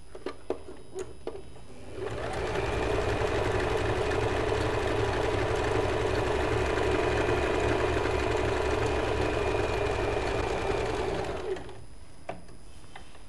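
Usha Janome Fashion Maker electronic sewing machine sewing a built-in decorative embroidery stitch. A few light clicks come first. About two seconds in the machine starts and runs steadily for about nine and a half seconds, then stops.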